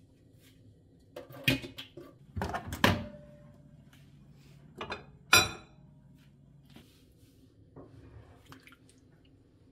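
A few sharp clicks and knocks, then a microwave oven humming steadily for about four seconds as it reheats a container of rice, with another sharp click partway through. Faint clinks near the end.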